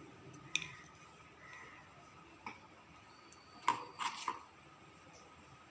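A handful of light clicks and taps of a spoon against a vessel as a spoonful of ground spice powder is added. The loudest taps come in a quick cluster about two-thirds of the way through.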